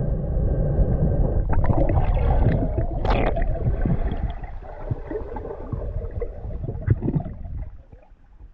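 Underwater sound heard through a submerged camera: a low rumbling water noise with gurgling bubble bursts from a diver. The bursts are strongest about three seconds in, and it grows quieter near the end.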